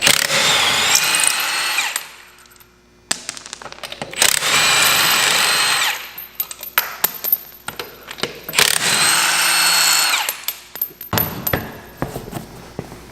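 Milwaukee cordless power tool, an impact driver or drill, run in three bursts of about two seconds, each spinning up to a steady whine and winding down as it takes fasteners off. Short metal clicks and clanks come between the bursts.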